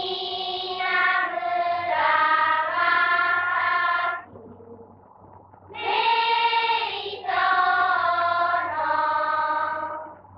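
A group of voices singing together in two phrases of held notes that step from pitch to pitch, with a pause of about a second and a half between them, over a steady low hum.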